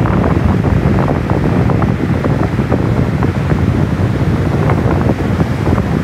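Typhoon-driven storm surf breaking and washing up the beach in a loud, continuous rumble, with strong wind buffeting the microphone.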